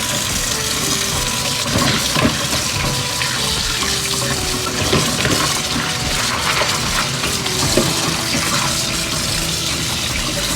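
Kitchen tap running steadily into a sink, with a few splashes and knocks as ingredients are rinsed under it.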